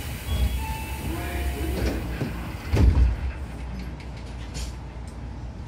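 Sliding doors of a Tobu 9000 series electric train working at a station stop: a short two-note chime, high then lower, then a heavy thud about three seconds in as the doors shut, over the car's steady low hum.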